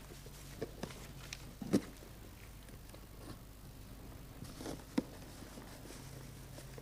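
Shiny gift-wrapping paper rustling and crinkling as a present is torn open and handled, with a few sharp clicks and taps, the loudest about five seconds in.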